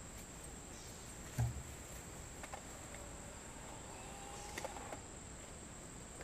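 A Polaroid instant camera firing once: a single short click-thump about a second and a half in, the loudest sound here. Fainter mechanical clicks follow near the end.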